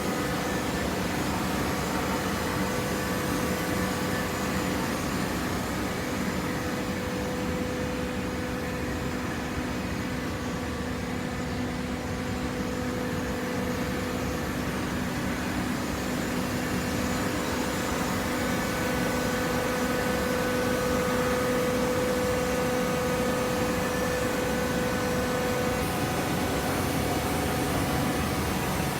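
Hydraulic baling machine running: a steady machine hum with a few held tones over a noisy mechanical background, growing slightly louder in the second half.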